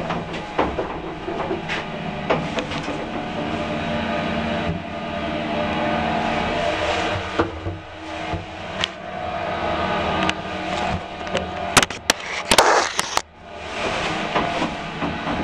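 An old Express electric lift running: a steady motor hum with rattling and scattered clicks as the car travels, and a cluster of sharp clicks about twelve seconds in.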